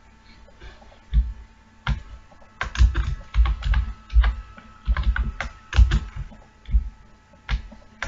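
Typing on a computer keyboard: a run of irregular keystrokes with low thumps, starting about a second in.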